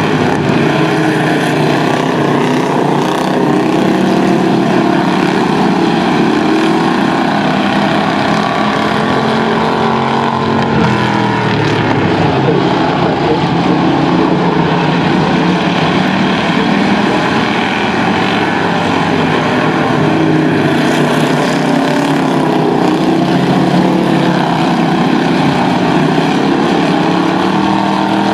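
A pack of Strictly Stock dirt-track stock cars racing, several engines running hard at once. Their overlapping engine notes rise and fall as the cars accelerate and lift for the turns.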